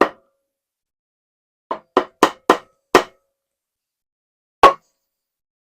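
Wooden joiner's mallet striking a chisel, making a marking cut in a hardwood blank: a knock at the start, a quick run of five taps, then one harder blow near the end.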